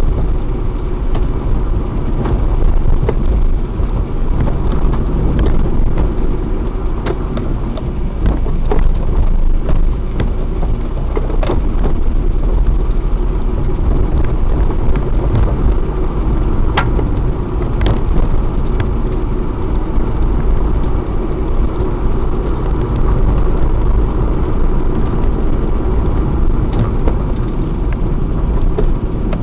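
A vehicle driving along a road, with steady engine and road noise and occasional sharp clicks and snaps.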